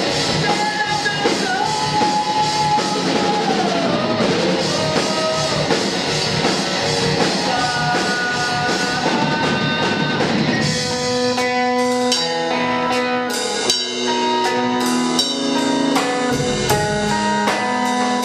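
Live rock band playing: electric guitar and drum kit in a dense, loud passage, with a gliding lead line early on. About ten seconds in it drops to a sparser section of separate held notes over a steady, evenly spaced tick.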